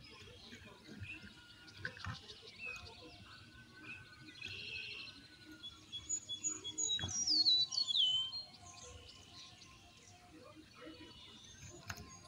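Small birds chirping and calling, with one clear falling whistled call about seven seconds in, the loudest sound. A few sharp clicks come as the crisp fried papads are handled.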